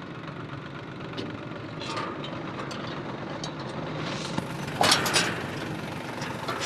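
Powertrac tractor's diesel engine idling steadily, with a few light metal clinks as a tanker trailer's steel drawbar is worked onto the hitch, and a louder scraping clatter about five seconds in.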